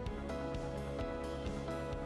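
Instrumental background music, with notes played at a steady pace of about four a second.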